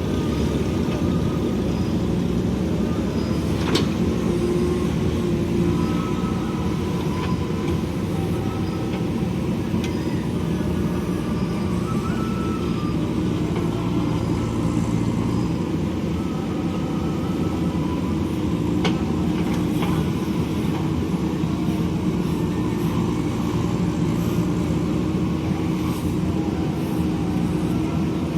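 JCB backhoe loader's diesel engine running steadily, with a few short knocks about 4 and 19 seconds in.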